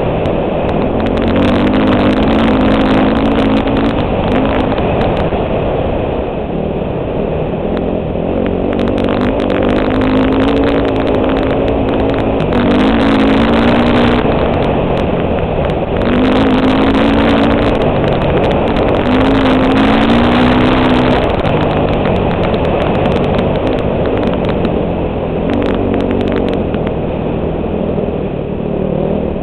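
Four-stroke dirt bike engine running hard at racing speed, heard from a helmet-mounted camera; the revs rise and fall every few seconds as the rider works the throttle and gears.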